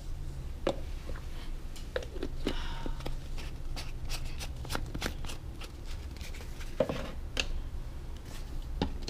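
Light clicks and taps of a bottle and a ceramic mug being handled on a granite kitchen counter, scattered irregularly and thickest near the middle, over a low steady hum.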